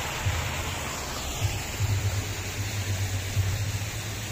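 Artificial fountain's water splashing, a steady hiss, with an uneven low rumble underneath.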